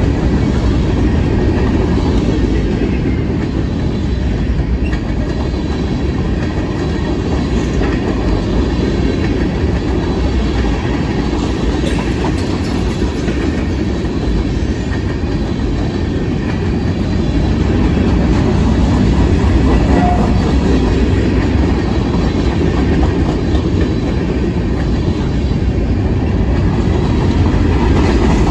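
Freight cars of a mixed freight train, covered hoppers and tank cars, rolling past at close range: a steady rumble of steel wheels on the rails.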